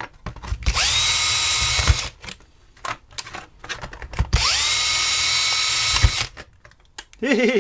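Cordless drill run twice into the plastic case of a streaming box, each run about a second and a half. The motor whine rises and then holds steady. There are a few sharp knocks as the bit bites and is pulled away.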